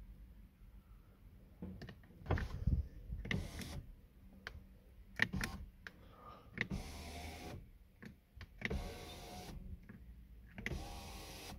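BMW E60 power window motor and regulator driving the glass up in short runs, stopping and starting, with clicks from the door window switch. Three runs of about a second each come in the second half. The stop-start travel is the anti-trap fault that this reset procedure, holding the switch up past closing, is meant to clear.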